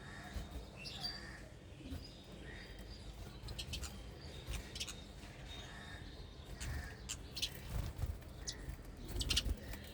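Small birds chirping in short, scattered calls, some in quick clusters, over a low uneven rumble.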